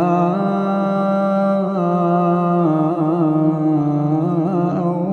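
A male reciter's voice chanting Quran recitation, holding one long steady note that steps up slightly near the start, then breaking into wavering melodic ornaments in the second half.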